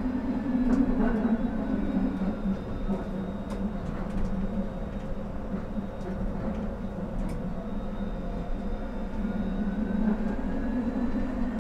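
Electric tram running along the track, heard from inside the driver's cab: a steady hum, the cab air conditioning running, and a faint whine that falls in pitch and later rises again, with a few light clicks.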